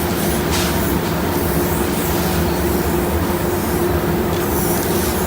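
Steady loud drone of a paint spray booth's ventilation with a constant hum. Over it come a few short hisses of plastic adhesion promoter being sprayed onto a headlight lens.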